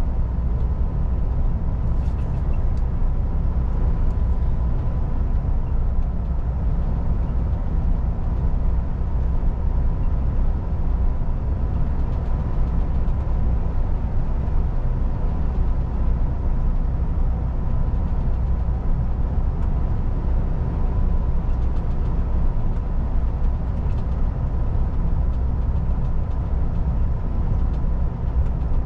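MAN TGX semi truck driving at a steady speed: an even low engine and road rumble with a thin steady whine above it.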